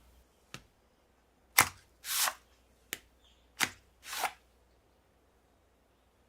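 Hard plastic clicks and short scrapes from handling a CSM Lost Driver toy belt: four sharp clicks with two brief rasping slides between them.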